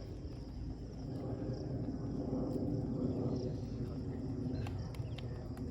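Open-field outdoor ambience: a steady low rumble with a faint, steady insect drone above it, and a few light clicks near the end.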